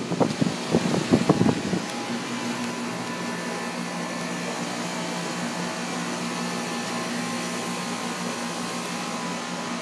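Outdoor central air conditioner condensing unit running steadily: a constant hum from the compressor with the whir of the condenser fan. A few thumps in the first two seconds.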